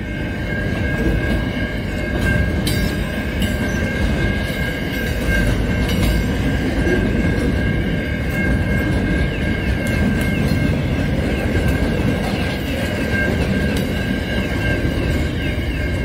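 Freight train's container wagons rolling past with a steady rumble and a continuous high-pitched wheel squeal. Scattered clicks sound as wheels pass over rail joints.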